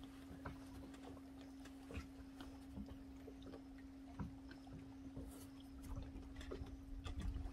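Quiet boat ambience: a steady low hum, a low rumble of water or wind against the hull, and scattered light clicks and taps of fishing gear being handled.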